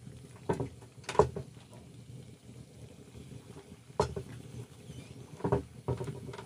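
Pieces of khajor dough frying in hot oil in an iron wok, a faint steady sizzle, broken by a few louder sharp sounds about half a second in, about a second in, at four seconds and near the end.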